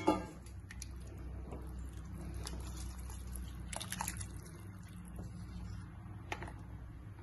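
Wooden spoon stirring rice, vegetables and hot water in an aluminium pressure cooker: liquid sloshing, with a few short scrapes and knocks of the spoon against the pot, the sharpest right at the start. A steady low hum runs underneath.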